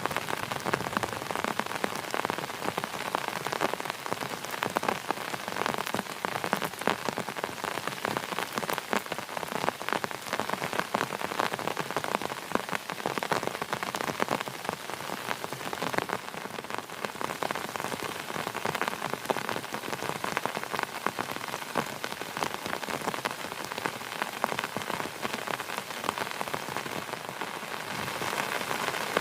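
Heavy rain falling steadily, a dense hiss of countless drops with individual drop impacts heard throughout.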